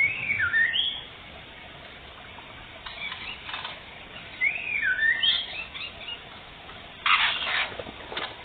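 White-rumped shama (murai batu) song: two short phrases of quick rising and falling whistles, one at the start and one about halfway through. Between them come two brief bursts of rustling flutter, the louder near the end.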